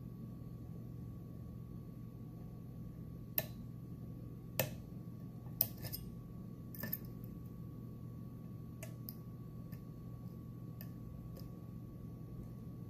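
Irregular small metallic clicks and ticks of a dimple pick working the pins of a Mul-T-Lock Interactive+ dimple lock under tension, a few spaced seconds apart, over a steady low hum.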